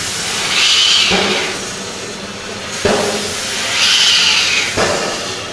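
Steam locomotive pulling slowly away: an exhaust chuff about every second and three-quarters, and two long hisses of steam from the cylinders, one about half a second in and one about four seconds in.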